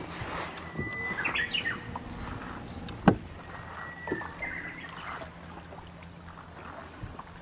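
Small birds chirping in short bursts, a little over a second in and again past four seconds, over a steady low hum. A single sharp knock about three seconds in is the loudest sound.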